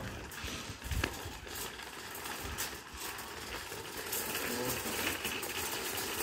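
Metal wire shopping cart being pushed along street pavement, its wheels and basket rattling continuously, with a sharper clack about a second in.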